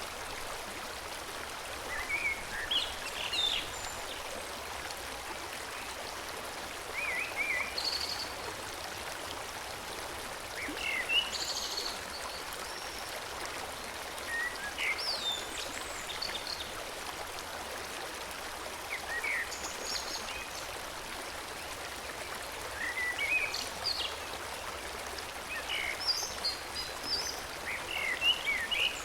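Forest stream flowing steadily, with songbirds chirping in short phrases every few seconds over it.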